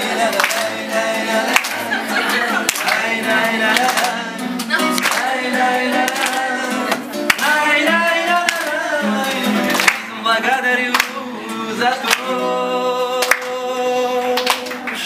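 Man singing live to an acoustic guitar, with the audience clapping along.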